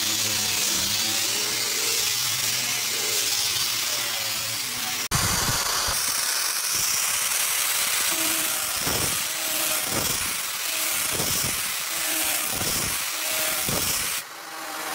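Electric disc sander running against pine, a steady high hiss of abrasive on wood. After a cut about five seconds in it works a thin wooden strip, with repeated low thuds as the pad presses on and lifts off the wood; the hiss drops briefly near the end.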